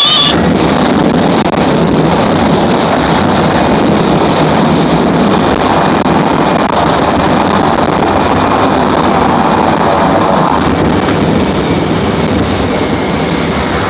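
Small single-engine propeller plane's engine and propeller running steadily, heard from inside the cockpit as the plane rolls along a dirt airstrip, with a low rumble underneath.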